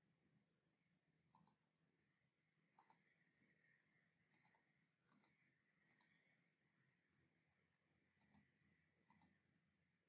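Faint computer mouse clicks, about seven, most in quick pairs, at irregular intervals.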